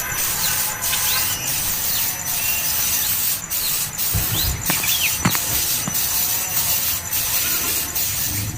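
Short, sliding bird chirps over a steady high insect drone that breaks off briefly every second or so, with two sharp clicks a little after the middle.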